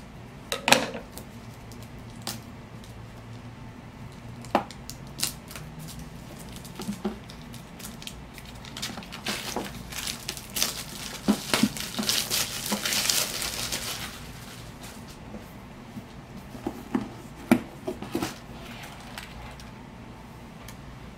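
Packaging being opened by hand: scissors snipping, then packaging crinkling and tearing, densest from about nine to fourteen seconds in, with scattered clicks and knocks of handling.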